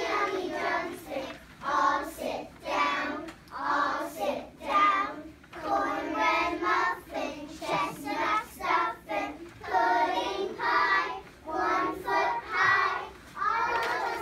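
A group of young children singing together in unison, unaccompanied, in short repeated phrases.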